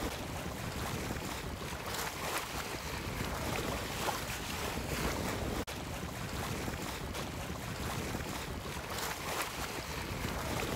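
Wind and sea noise aboard a sailing yacht under sail: a steady rush of wind on the microphone with water washing past the hull. It drops out for an instant a little past halfway.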